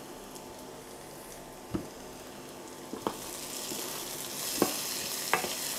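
Chopped onions sizzling gently in sunflower oil in a non-stick frying pan as they soften, the sizzle growing louder in the second half. Now and then a wooden spoon knocks and scrapes against the pan as the onions are stirred.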